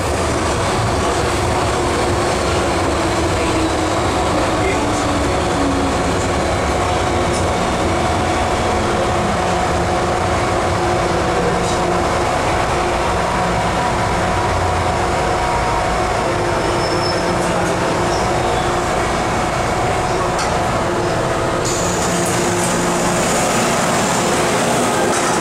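Hong Kong MTR M-Train subway car running underground, heard from inside the car by the doors: a steady rumble of wheels on track with the whine of the traction motors. Near the end the sound changes as the train arrives at the station and the doors open onto the platform.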